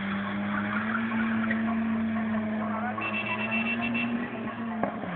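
Drift car's engine held at high revs, its pitch creeping slowly upward and then falling off sharply near the end as the throttle comes off.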